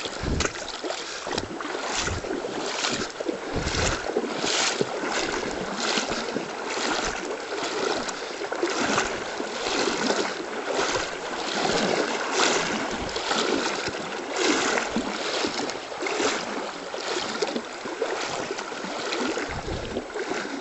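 Footsteps wading through shallow river water, a steady splashing stride of about three steps every two seconds over the rush of the river.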